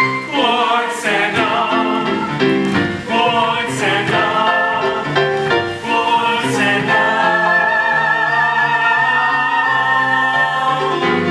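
Musical-theatre song: several voices singing with vibrato over instrumental accompaniment, holding one long note through the second half.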